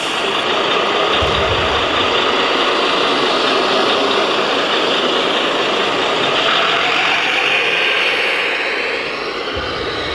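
Steady diesel truck engine sound from a radio-controlled model fire truck's sound module, running without a break.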